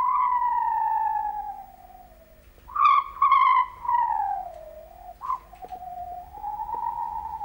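Breathy whistled tone blown into cupped hands, sliding slowly down in pitch. A long falling note is followed by a short gap about two seconds in, then a few short higher notes that glide down again and a lower wavering note near the end.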